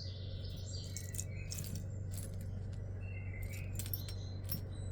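Small metal jewelry pieces (rings and earrings) clinking and jingling against each other as they are picked through by hand, a scatter of light clicks and brief metallic ticks over a steady low hum.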